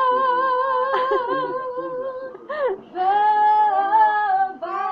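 A woman singing unaccompanied, holding two long high notes with vibrato, with a short sliding note between them.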